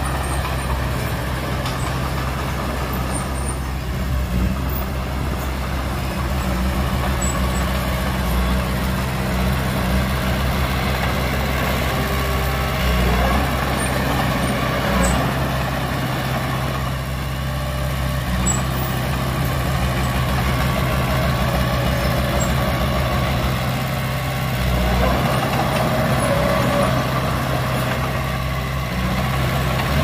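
Heavy diesel engine of earthmoving equipment running steadily, with a deep, even engine note.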